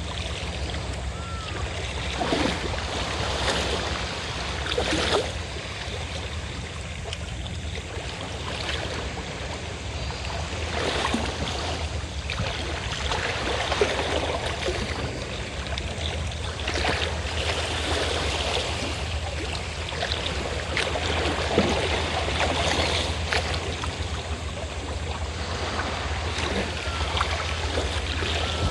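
Sea waves washing in and drawing back, the rush of water swelling and easing every few seconds, over the steady low drone of a fishing boat's engine.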